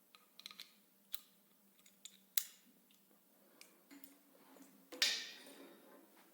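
Light metallic clicks and taps, then a sharper snap about five seconds in that rings briefly: an air gun being handled and fitted to an air hose's quick coupler.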